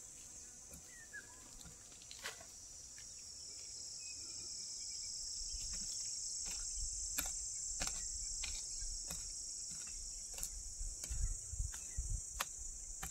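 Steady high-pitched insect chorus, with irregular short knocks and scrapes of a small curved hand blade chopping into dry soil to dig a planting hole, coming about once or twice a second from about halfway.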